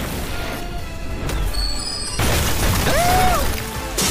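Anime soundtrack: background music with battle and magic sound effects, a sudden loud crash-like burst about two seconds in, followed by a short rising-and-falling tone.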